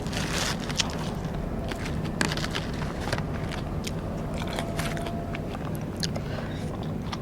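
Close-miked biting and chewing of Vietnamese rice paper (bánh tráng) snacks: scattered short crackly crunches over a steady low hum.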